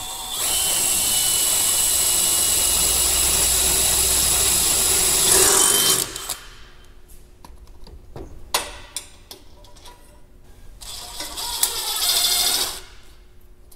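A power drill runs steadily for about five and a half seconds, its motor whine shifting in pitch as it stops. Scattered clicks and knocks of tools and parts being handled follow, with a second, shorter burst of drilling near the end.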